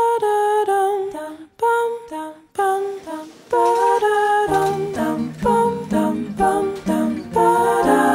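Background music: a wordless, hummed or a cappella vocal melody in short separated notes. A lower sustained part joins in about halfway through.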